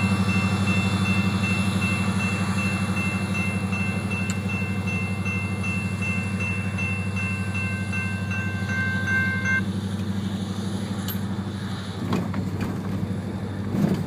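Iron ore train being shoved by a CN EMD SD50F diesel: a steady low engine drone, with a thin high squeal that stops about two-thirds of the way through and a few brief knocks near the end.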